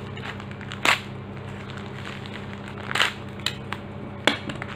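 Plastic courier mailer being slit with a utility knife and torn open by hand: sharp crackles of the plastic, loudest about a second in, with more around three and four seconds.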